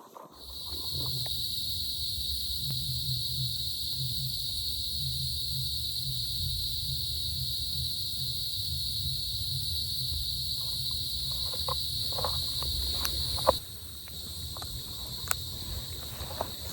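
Cicadas droning in a steady, high, hissing chorus that starts abruptly and drops in level about three-quarters of the way through, over a low rumble. A few faint clicks come near the end.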